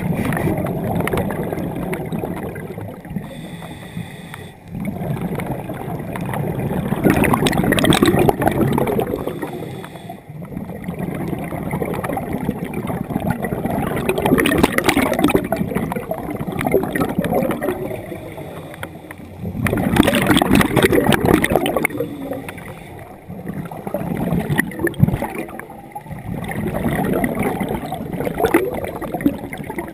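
Scuba diver's exhaled bubbles from the regulator, recorded underwater: gurgling bursts about every six to seven seconds, with quieter stretches between breaths.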